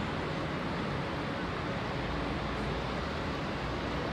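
Steady open-air background noise: wind on the microphone mixed with distant city traffic.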